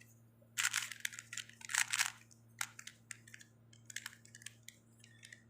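Plastic Rubik's cube being turned by hand: short runs of rapid clacking as the layers are twisted, coming in bursts about once a second.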